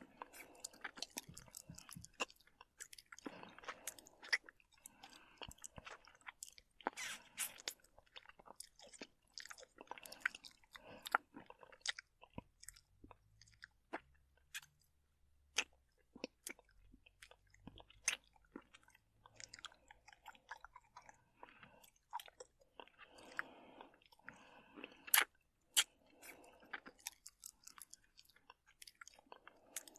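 People eating spicy spaghetti up close: soft chewing, slurping and mouth clicks, with scattered sharp ticks of cutlery on plates.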